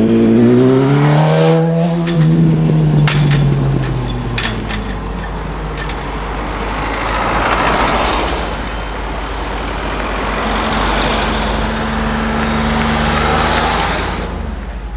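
A sport motorcycle's engine revving as it rides past close by, its pitch climbing and then falling away in the first few seconds. Two sharp clicks follow, then a car and a van drive past one after another with tyre noise swelling and fading.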